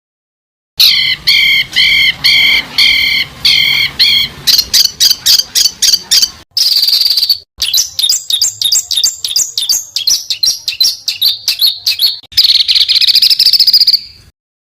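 Songbird song: about a second in, a row of evenly repeated whistled notes, then fast chattering trills and stuttering notes with two buzzy trilled phrases, cutting off abruptly near the end.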